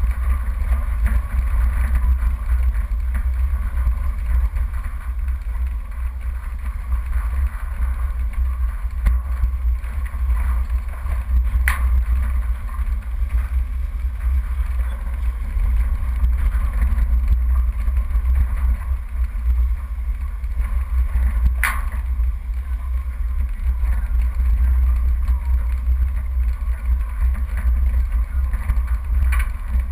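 Off-road 4x4 driving slowly over a rough dirt track, a deep steady rumble of engine and running gear with vibration picked up by the mounted camera. Two sharp knocks stand out, one about twelve seconds in and one about twenty-two seconds in.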